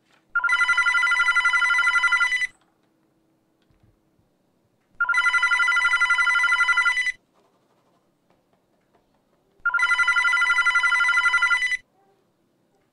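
Telephone ringing three times, each ring a trilling electronic tone about two seconds long, with pauses of two to three seconds between rings.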